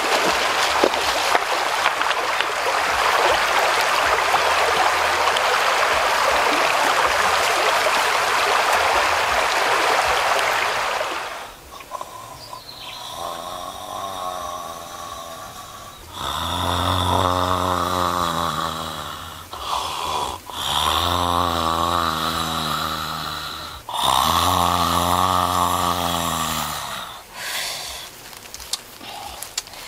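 Shallow river water running over stones for the first ten seconds or so. It then gives way to a man snoring loudly: a few weaker snores, then several long ones of about three seconds each.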